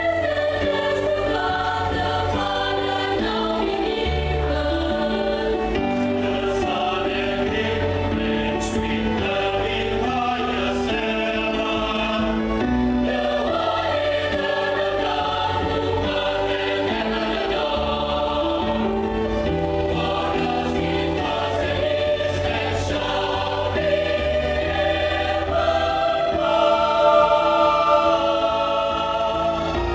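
Mixed choir singing a song in several-part harmony, swelling louder near the end.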